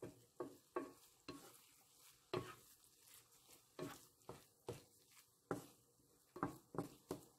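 A wooden spatula stirring and scraping corned beef and diced potatoes in a non-stick frying pan, with short, quiet scrapes and taps about one or two a second over a faint sizzle of the frying meat.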